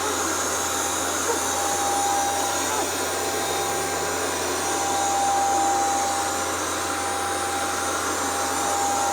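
Hoover SmartWash carpet washer running steadily: a rushing motor noise with a thin, high whine over it, swelling a little about five seconds in.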